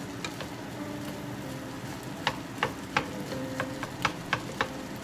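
Two wooden spatulas stirring and scraping fried rice in a hot pan over a light sizzle, with a few sharp knocks of the spatulas against the pan in the second half.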